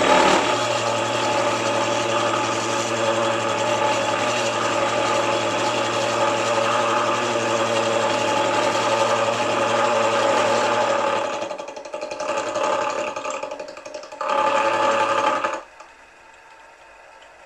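Milling machine running with a gear cutter cutting teeth into a small gear blank at half depth: a steady machine hum with cutting noise. About 11 seconds in it drops away and wavers, comes back loud for a second or so, then cuts off suddenly near the end.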